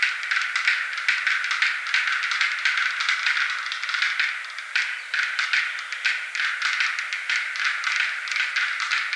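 Black-billed capercaillie display calls: a dense, unbroken run of dry clicks and rattles.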